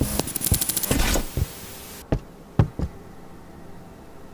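A rapid run of clicks and knocks in the first second, then a few separate dull thumps about two to three seconds in.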